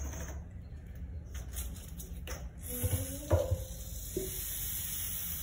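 Wet handling noises of a cat being shampooed in a stainless steel sink: hands working lather into soaked fur and a plastic shampoo bottle being handled, with scattered clicks. A couple of brief faint vocal sounds come about three seconds in.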